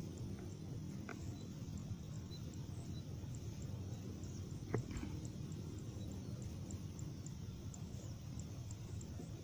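Quiet field ambience: a low steady rumble with faint high ticks repeating about twice a second, and a soft click about five seconds in.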